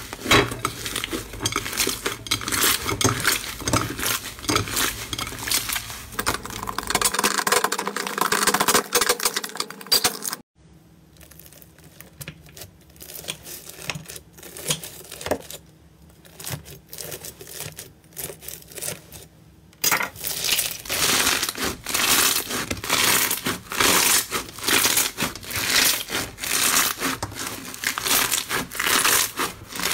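Hands kneading and squeezing slime, a dense sticky crackling and popping full of small clicks. About ten seconds in it turns much quieter for about ten seconds, with scattered faint clicks, as scissors cut through a grainy pink slime. Then loud crackling returns as that crunchy, bead-textured slime is squeezed by hand.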